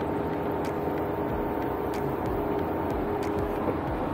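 Ford Bronco crawling along a rocky off-road trail: a steady engine and drivetrain drone, with a few short sharp knocks and clicks scattered through it.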